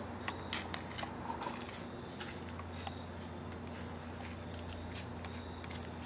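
Light crackles and crunches of footsteps in dry fallen leaves, several close together in the first second and a half, then only scattered ticks.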